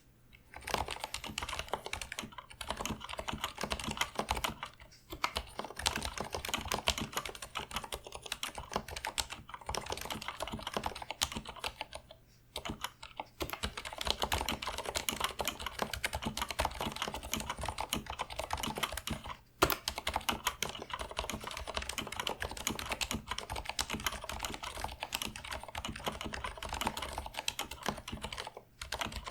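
Fast continuous typing on a Leopold 980M mechanical keyboard with Cherry MX Silent Red linear switches, dense soft keystrokes broken by a few short pauses.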